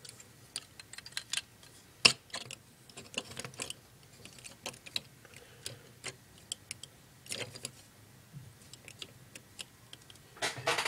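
Hard plastic pieces of a Transformers Construct-Bots construction-toy figure clicking and clattering as the figure is handled and set down. Scattered small clicks, a sharper knock about two seconds in, and a quick flurry of clicks near the end.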